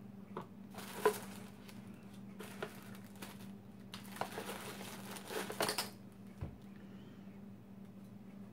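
Packaging crinkling and rustling in short bursts as small items are unwrapped and handled by hand, the busiest stretch between about 4 and 6 seconds in, over a steady low hum.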